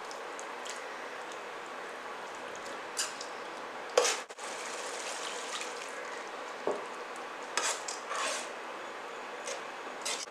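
A steel spoon stirring a thin gravy in a wok, scraping and clinking against the pan now and then, with the sharpest clink about four seconds in, over a steady hiss.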